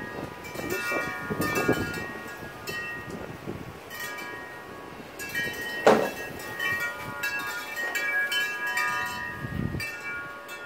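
Many clear ringing tones at different pitches, sounding and fading in irregular overlap like chimes stirring. A short sharp sound comes about six seconds in.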